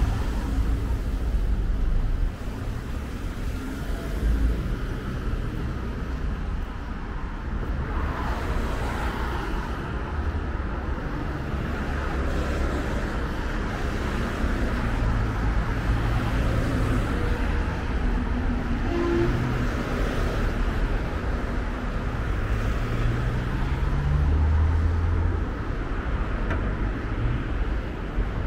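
Steady road traffic noise: cars and other vehicles passing on a busy multi-lane road. Engine and tyre noise swells a few times as individual vehicles go by.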